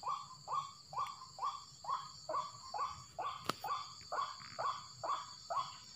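White-breasted waterhen (ruak-ruak) calling, short harsh notes repeated about twice a second at an even pace, over a steady high drone of insects. A single sharp click about halfway through.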